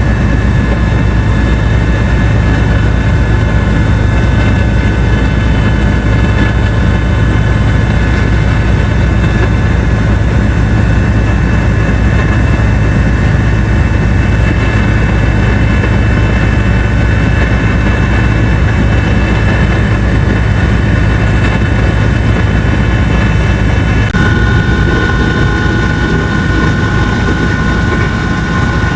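Helicopter engine and rotors running steadily, loud and close, with a constant low drone and a steady whine above it. About four-fifths of the way through, the pitch of the whine shifts and a new, higher tone comes in.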